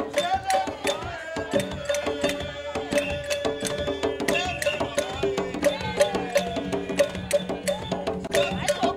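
Ghanaian jama: group singing over fast, steady drum and wood-block-like percussion, with several strikes a second.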